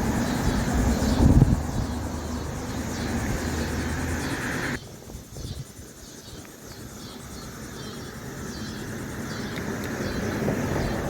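Outdoor ambience with a steady low engine-like hum, which cuts off abruptly about five seconds in, giving way to quieter background noise with faint repeated high chirps.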